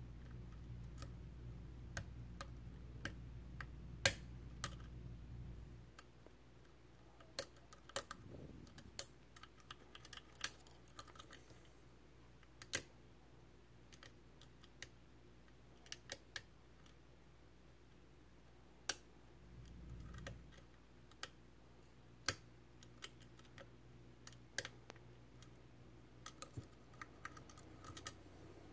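Irregular small metallic clicks and ticks of a lock pick and tension wrench working the pins of a Medeco M3 high-security lock cylinder, the loudest about four seconds in. A faint low hum underneath stops about six seconds in.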